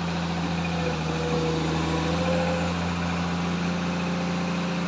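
Komatsu excavator's diesel engine running steadily with a deep hum. A faint higher whine rises slightly from about a second in and fades out near the middle.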